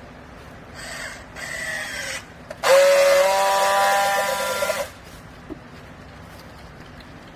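A small electric motor whining in two short runs: a weaker one about a second in, and a louder one about three seconds in that lasts two seconds, rising briefly in pitch as it spins up.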